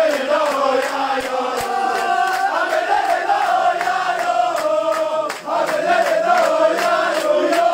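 A group of men chanting a song together in unison, with sharp regular beats keeping time.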